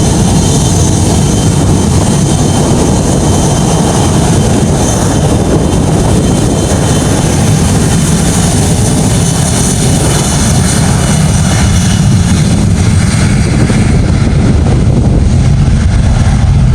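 Airplane taking off close by: loud, steady engine noise with a faint high whine, its highest hiss thinning out near the end.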